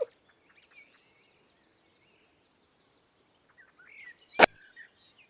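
Faint birdsong, with scattered short high chirps, and a single sharp click about four seconds in.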